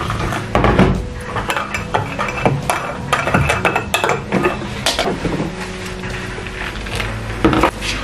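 A spoon stirring a drink in a ceramic mug, clinking and tapping against the sides: a string of light, irregular clinks.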